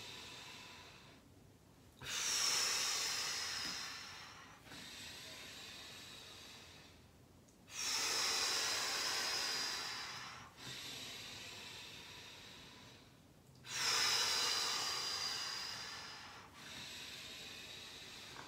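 Slow, deliberate breathing exercise: quieter breaths in through the nose alternate with louder breaths blown out through pursed lips, like blowing through a straw. There are three long out-breaths, each fading away over a few seconds.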